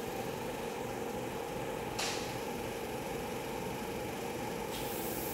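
Steady machine hum with two level tones under an even hiss. A short hiss cuts in about two seconds in, and a steady higher hiss joins near the end.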